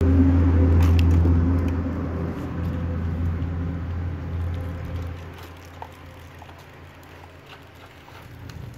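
A motor vehicle's engine humming steadily, loud at first and fading away over about five seconds.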